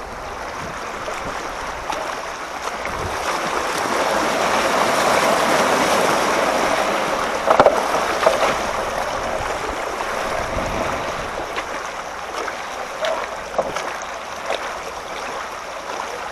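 Fast-flowing floodwater rushing and sloshing around someone moving through it, swelling louder about four to eight seconds in, with a couple of brief knocks near the middle.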